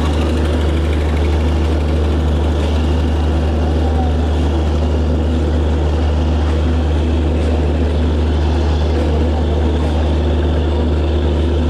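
Heavy diesel engine of a departing train running steadily, a deep, constant drone that does not change in pitch or level.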